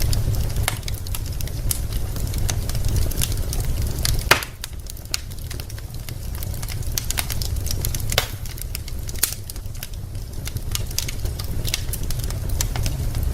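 Wood fire burning in a fireplace, logs crackling with frequent sharp irregular pops over a steady low rumble of the flames. One louder pop comes about four seconds in.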